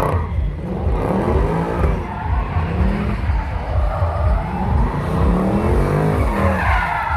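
Mercedes C63 AMG's V8 revving up and down again and again as it drifts, with the rear tyres squealing and spinning on the tarmac.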